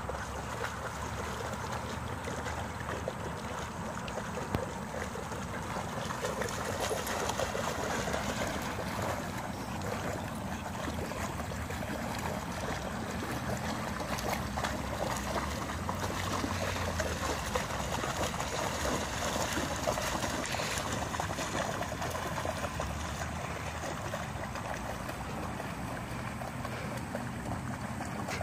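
Water splashing and sloshing as two dogs wade and swim in a shallow river, busiest through the middle stretch.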